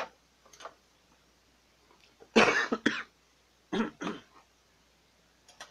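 A person coughing: a loud double cough about two and a half seconds in, then two shorter coughs about a second later.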